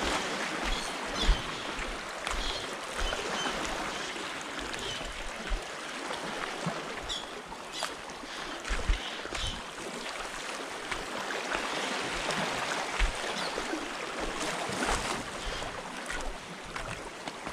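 Sea water washing and lapping, a steady hiss, with wind gusting on the microphone in low thumps.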